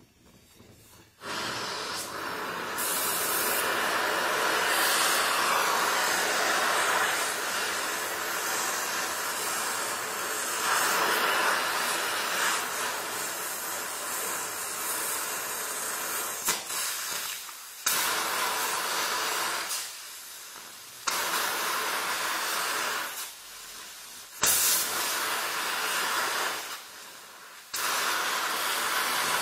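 Gas-welding torch flame (Donmet 132A micro oxy-fuel torch) hissing steadily against a steel pipe. It starts about a second in and drops out briefly several times in the second half.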